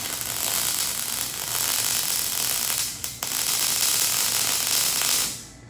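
MIG welding on steel chassis tubing: a steady crackling arc that breaks off briefly about three seconds in, starts again and stops shortly before the end.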